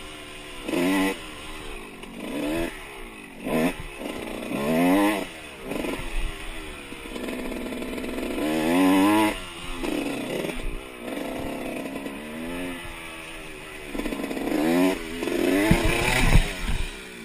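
Dirt bike engine revving, its pitch repeatedly climbing under throttle and dropping back through the ride. Near the end come a few heavy thuds as the bike goes down in the dirt.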